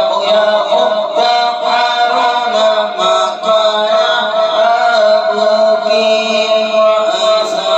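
Devotional chanting by a voice, sung in phrases over long held notes, with no break.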